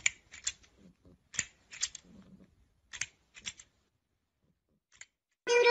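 Plastic crocodile grabber toy clacking as its jaws snap shut: about a dozen short, sharp clicks, mostly in quick pairs, with quiet gaps between. Music starts near the end.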